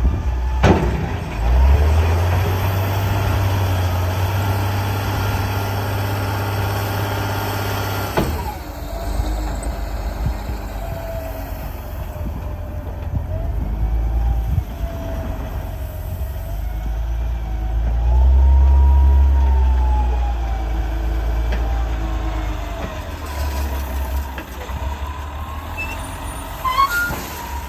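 Heavy diesel earth-moving machinery running under load: a deep engine rumble with a wavering whine that rises and falls. The sound changes abruptly about eight seconds in, and the engine swells again later.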